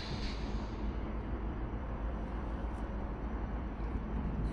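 Steady low outdoor rumble with no clear single source, and a brief hiss right at the start.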